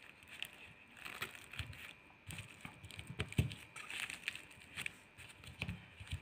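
Faint handling noise: a string of small irregular clicks and taps from a smartwatch's plastic case and battery as the battery is pressed into place, with some crinkling of the bubble wrap under it. The loudest knock comes about halfway through.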